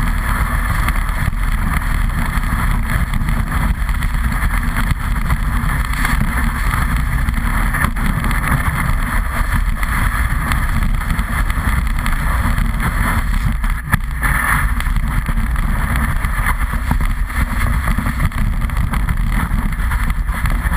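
Steady rushing wind on a snowboard-mounted action camera's microphone, mixed with the hiss and scrape of the board sliding over snow.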